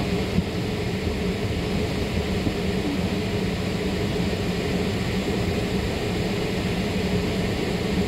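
Car air-conditioning blower running steadily inside the parked car's cabin, an even rushing hiss over a low hum.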